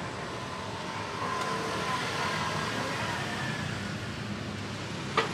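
Steady road traffic noise from the street, with a single sharp click about five seconds in.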